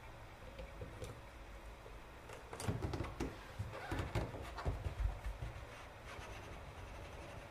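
A drinking glass pressed down through soft cookie dough and twisted against the countertop to cut a crescent: a string of short knocks and taps of glass on the counter in the middle.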